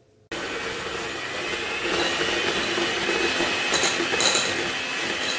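Electric hand mixer starts about a third of a second in and runs steadily, beating melted chocolate into butter-and-egg-yolk cake batter in a glass bowl. The beaters now and then clink against the glass.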